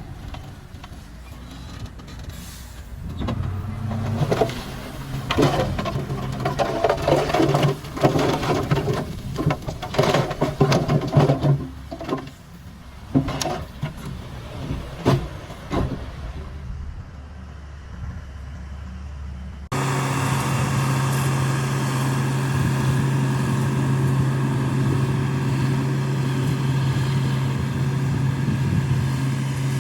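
Shantui DH17 C2 crawler bulldozer's diesel engine running under load, with irregular clanks and knocks through the first half. About two-thirds of the way in the sound changes suddenly to a steady engine drone.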